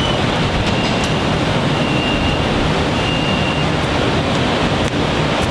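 BTS Skytrain train standing at the platform as its doors open: a steady loud rumble and hiss, with a faint high tone twice near the middle.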